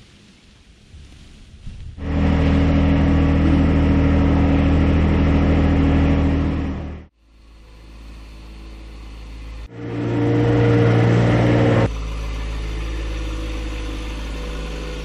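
John Deere 2025R compact tractor's three-cylinder diesel engine running steadily while working a front snow thrower. The sound starts abruptly about two seconds in, dies away briefly around seven seconds, then swells back loud and settles a little lower near the end.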